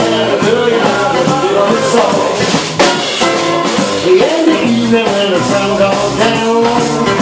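A live rock and roll band playing loudly: a man sings into a microphone over a strummed acoustic guitar, an electric guitar and a drum kit with regular drum and cymbal hits.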